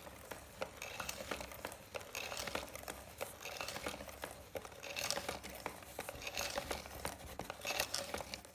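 Cardboard automaton's mechanism in motion: cardboard parts scraping, rubbing and clicking irregularly as the paddler figure and kayak move.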